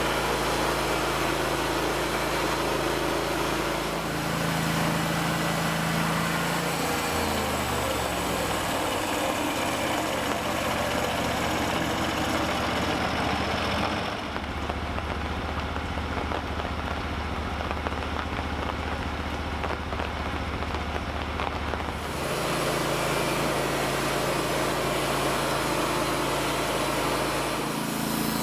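Norwood portable sawmill running: a steady engine with a dip in pitch several seconds in, and a sudden change in tone about halfway through that switches back near the end.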